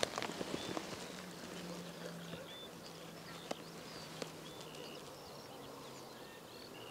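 Faint short bird chirps over quiet riverside ambience, with a low steady hum in the middle and two soft clicks about three and a half and four seconds in.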